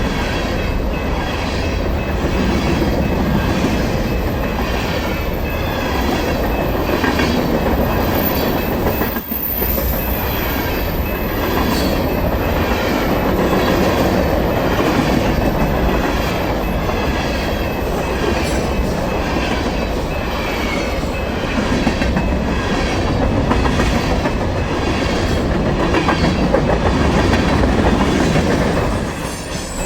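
Freight train cars passing at speed, wheels clicking over rail joints in a steady rhythm over a continuous rumble.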